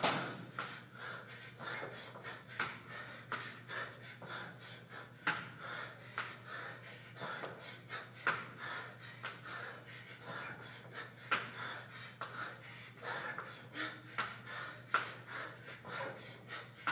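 A man panting hard and fast, out of breath mid-workout during a set of burpees. A sharp thump at the very start, and further thuds every few seconds as his hands and feet hit the floor.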